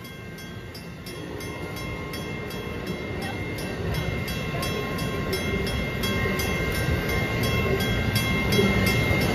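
Amtrak passenger train's coaches rushing past a grade crossing, the rumble of the wheels growing steadily louder. The crossing bell rings on over it at an even beat.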